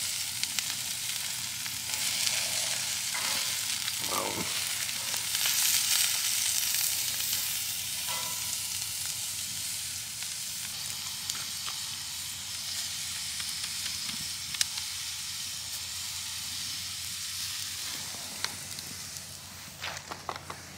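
Hamburger patty sizzling on a steel grill grate over campfire coals, a steady frying hiss that fades near the end. A few sharp clicks and knocks follow in the last seconds.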